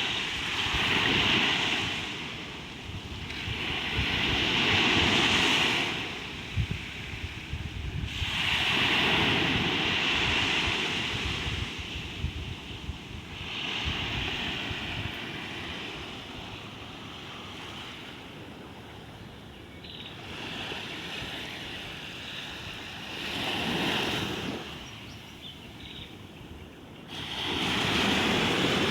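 Ocean waves breaking and washing on the shore, the surf rising and falling in surges every few seconds, with wind buffeting the microphone.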